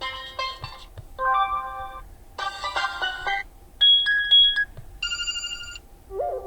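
Short excerpts of the HOTWAV T5 Pro smartphone's built-in system ringtones played one after another: about six different melodies, each under a second long, with brief gaps between them.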